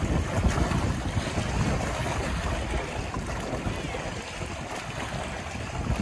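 Wind-driven waves washing and splashing against shoreline rocks, with wind buffeting the microphone as a gusty low rumble. The gusts ease somewhat in the second half.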